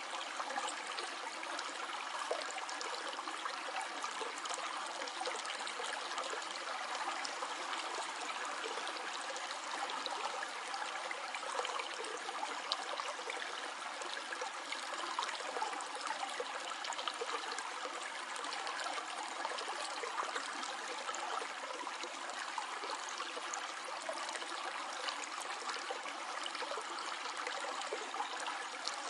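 A stream flowing steadily, water trickling and gurgling over stones, with many small splashes.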